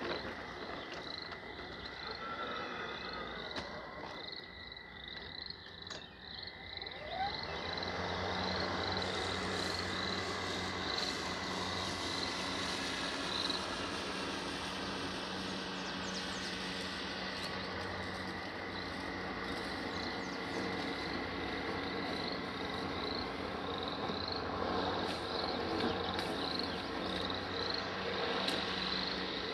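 A chorus of frogs calling, short high peeps repeating about twice a second. Under them, from about a quarter of the way in, the steady low hum of a Greenworks 60V brushless electric mower running, quieter than the frogs.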